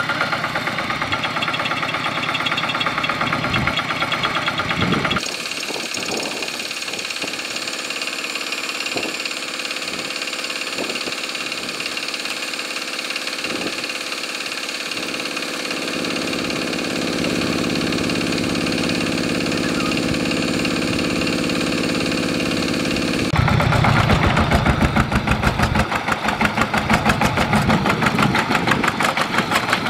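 Two-wheel walking tractor's single-cylinder diesel engine running with a rapid, even knock while its mud-caked wheels sit mired in a muddy rut. It gets clearly louder in the last several seconds.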